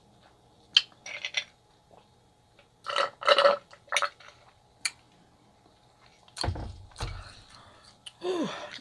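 Sipping soda through a straw from a glass of ice, with short bursts of slurping and ice rattling in the glass, then two dull thumps as the glass is set down. A short voiced sound falling in pitch comes near the end.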